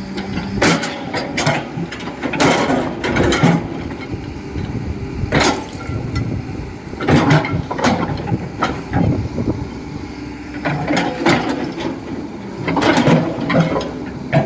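Excavator engine running steadily, with repeated bouts of clanking and scraping from the machine working.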